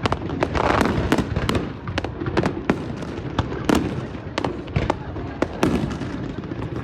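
Fireworks display: many sharp bangs and cracks of bursting shells in quick, irregular succession, over a steady low noise.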